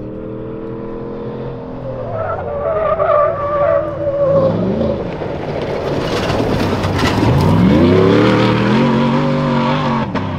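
Prerunner pickup truck's engine revving up and down as it slides on loose desert dirt, with a rushing spray of tires digging through dirt in the middle. The engine pitch climbs again near the end, then settles to a steady burble.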